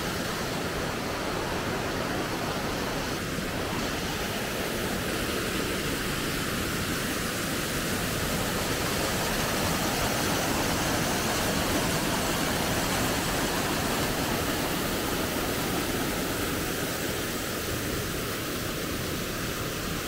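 Waterfall cascading down rock chutes: a steady, even rush of falling water.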